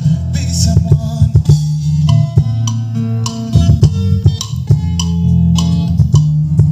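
Bass-heavy music with a plucked bass line and drums, played loud through a sound system under test; the bass notes change every second or so and dominate the sound.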